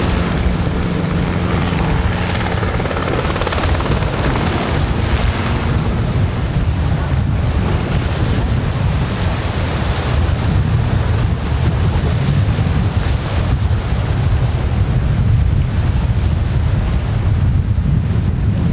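Light helicopter flying low overhead, its steady engine and rotor hum fading out within the first few seconds. Wind buffeting the microphone and surf rushing carry on throughout.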